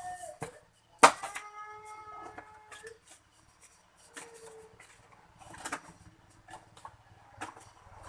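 A rooster crowing, one long call that falls in pitch, starting about a second in. A sharp knock marks its start, and a few scattered clicks and knocks come later.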